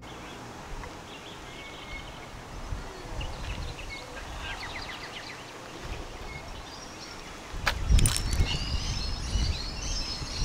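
Wind rumbling on the microphone, with birds chirping and twittering. A louder gust buffets the microphone about eight seconds in.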